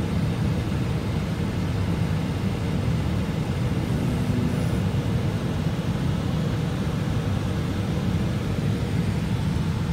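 Steady low rumble heard from inside a moving vehicle, engine and running noise at an even level.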